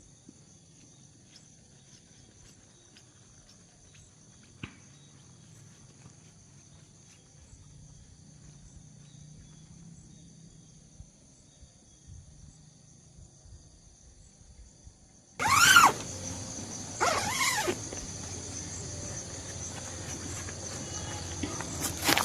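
Insects, crickets among them, trilling in a steady high chorus. About fifteen seconds in, two loud shrill calls break out a second and a half apart, each rising and then falling in pitch, and an even hiss continues after them.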